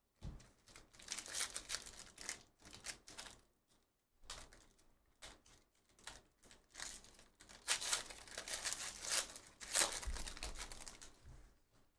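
Foil trading-card pack being torn open and crinkled in the hands: bursts of crackling, rustling foil with short pauses, loudest in the second half.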